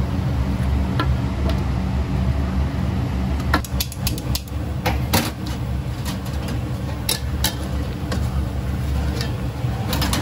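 Gas wok burner running with a steady low rumble, with scattered clinks and knocks of a metal ladle against pot and wok; near the end a metal lid clanks onto the wok.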